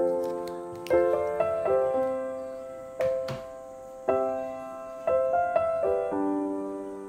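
Background piano music: a slow, gentle melody with chords struck about once a second, each note ringing and fading away.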